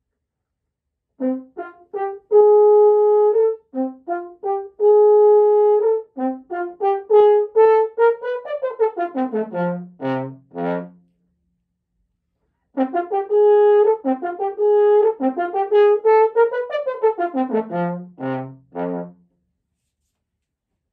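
Solo French horn playing an orchestral excerpt: short notes and two long held notes, then a quick rising run that turns and falls to low notes. After a pause of about a second and a half, the same phrase is played again.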